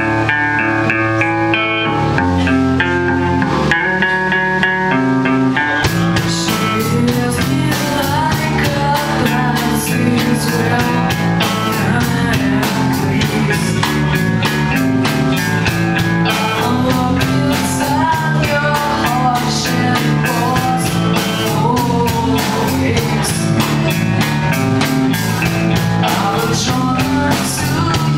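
Rock song: a guitar intro for about six seconds, then drums and the full band come in, with singing over them.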